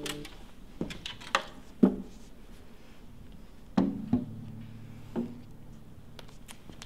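An acoustic guitar's last chord is cut off just after the start, then a handful of irregular wooden knocks and bumps follow, some leaving a short ring, as the guitar and wooden chair are handled while the player gets up.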